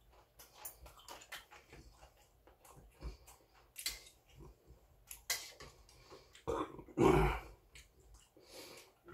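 A person eating seonji-guk (ox-blood soup): chewing and slurping, with small clicks of chopsticks and a spoon against the bowl. A louder mouth noise comes a little before seven seconds in.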